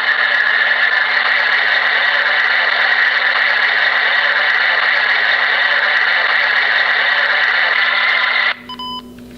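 White noise from a Homedics SoundSpa Rejuvenate sound machine, played back through a handheld voice recorder's small speaker. It is a steady, loud hiss that cuts off suddenly about eight and a half seconds in, when playback stops, followed by a brief faint tone.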